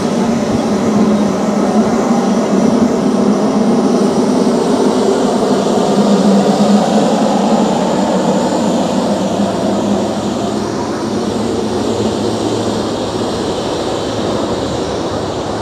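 Jet engine noise from a Boeing 777-300ER's GE90 turbofans: a loud, steady rush that swells to a peak about six seconds in, then slowly fades.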